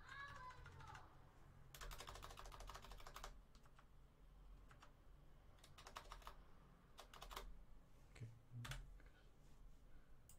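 Computer keyboard keys tapped faintly: a quick run of keystrokes about two seconds in, then a few scattered single taps as a command line is edited.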